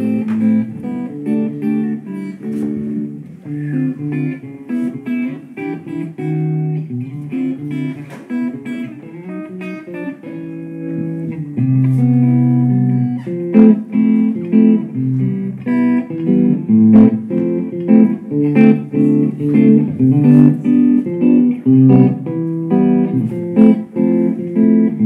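Electric guitar playing background music, picking a melody of single notes and chords, louder from about twelve seconds in.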